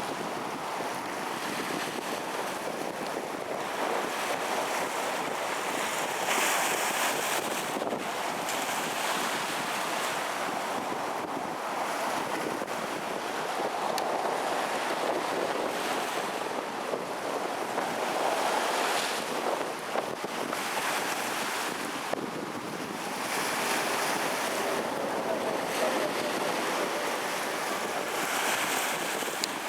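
Storm surf on the Gulf of Mexico breaking on the shore under strong wind, with wind buffeting the microphone. The noise swells louder every several seconds as waves break and gusts hit.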